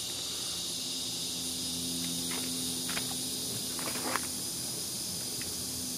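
A few short, faint crinkles and taps of plastic bait packs being handled in a cardboard box, over a steady high hiss and a faint low hum.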